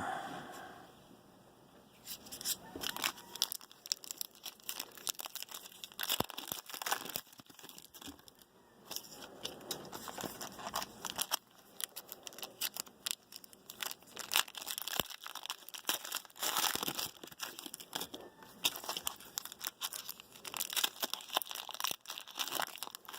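Foil trading-card pack wrappers being torn open and crinkled, with irregular crackles and rips starting about two seconds in and going on throughout.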